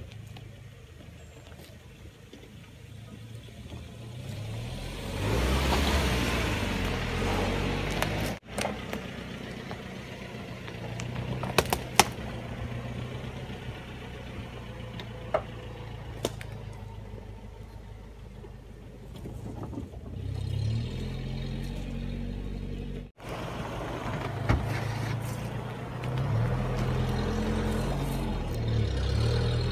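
Suzuki 4x4's engine revving up and down as it crawls through a rut and climbs a dirt mound off-road, with a few sharp knocks along the way. The sound cuts out briefly twice.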